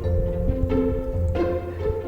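Background music: held chords with new notes coming in about every two-thirds of a second, over a low rumble.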